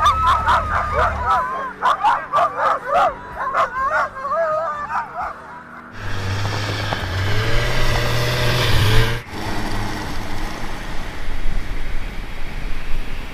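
Excited dogs yipping and howling in quick, wavering calls for the first several seconds. A snowmobile engine then comes in, running and rising in pitch, and breaks off suddenly a little past halfway, followed by steady engine and rushing noise.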